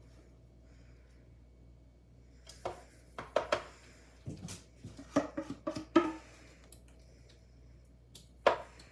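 A utensil clinking and scraping against a stainless steel mixing bowl while waffle batter is scraped out onto a waffle iron: a run of sharp clinks and scrapes, some with a brief metallic ring, then one sharp knock near the end.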